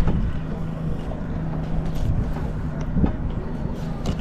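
A steady low motor hum with wind noise on the microphone.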